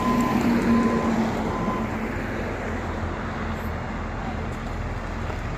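LiuGong motor grader's diesel engine running steadily, with its reversing alarm beeping about once every 0.7 s for the first two seconds and then falling silent.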